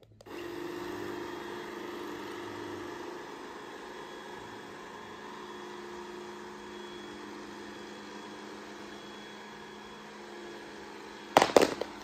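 Mamibot robot vacuum cleaner starting up and running with a steady motor hum. Near the end come a few loud knocks.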